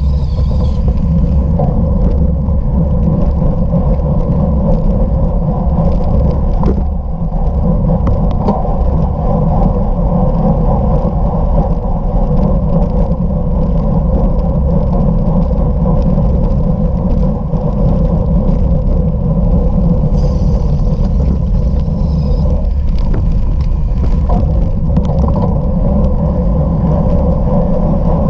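Steady low rumble of wind and rolling noise from a bicycle ridden at race speed over off-road ground, heard through a ride-along camera's microphone. A brief high squeal comes about twenty seconds in.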